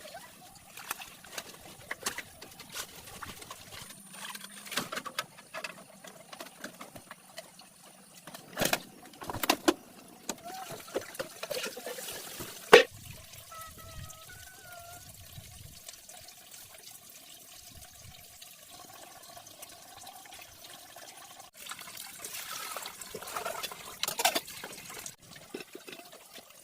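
Water trickling and splashing, with scattered knocks and clatter and one sharp knock about halfway through.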